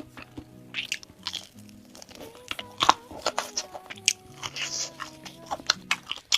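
Crunchy bites and chewing of crispy fried food, many sharp crunches with the loudest about three seconds in, over background music with held notes.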